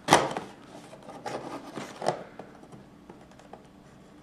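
A small hand tool scraping and cutting at the tape seals of a cardboard box: a sharp scrape just at the start, then several rasping strokes between one and two seconds in, with quieter handling of the box after.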